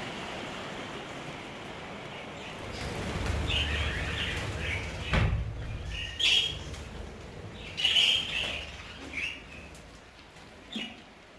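Budgerigars chirping in short bursts, several clusters of calls between about three and ten seconds in, over a steady hiss that fades away.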